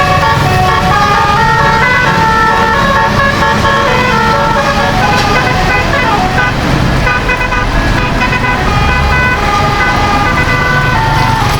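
Bus 'telolet' musical air horn playing a quick tune of short, stepped notes, with one falling, siren-like sweep about six seconds in, over a low engine rumble.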